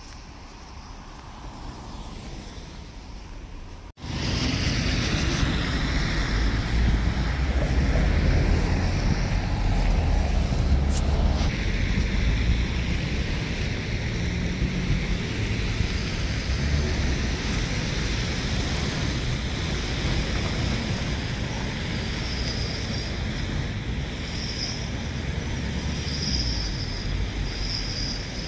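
Faint outdoor traffic noise, then, about four seconds in, an abrupt jump to loud, gusting wind rumbling on the microphone that continues throughout.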